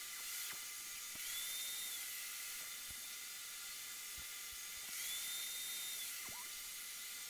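Table saw running with a steady high whine while ripping strips of oak. The sound swells twice, about a second in and again about five seconds in, as the blade cuts through the board.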